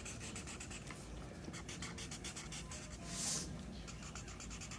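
Felt-tip marker scribbling on paper in rapid back-and-forth strokes, colouring in an area. A short louder hiss comes about three seconds in.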